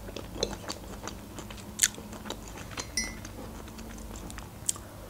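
A person chewing food, with small mouth clicks, and a short clink of cutlery on crockery about three seconds in.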